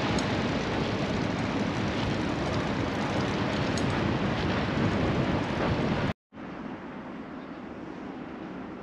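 Wind rushing over the microphone while riding a bicycle along a cycle path, a loud steady noise. It cuts off suddenly about six seconds in and gives way to a much quieter steady background hiss.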